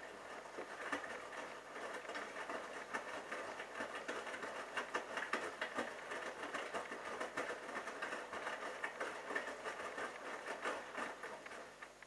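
Bosch Logixx WAS32461GB front-loading washing machine in its rinse phase: the drum turns and the wet laundry tumbles and sloshes in the rinse water as a dense, steady patter of splashes and soft knocks. It dies away near the end as the drum stops.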